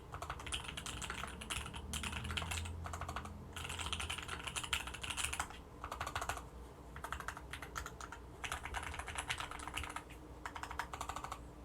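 Typing on an Orion V3 custom mechanical keyboard with Tealios linear switches: quick runs of keystrokes broken by short pauses.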